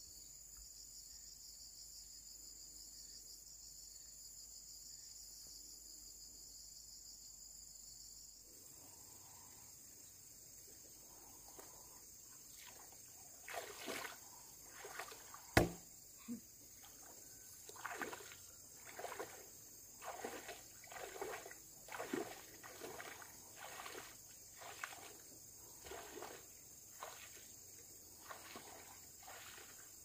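Insects chirring steadily throughout. Partway through, a run of regular strokes begins, about one a second, with one sharp knock among them: wood being worked with a hand tool.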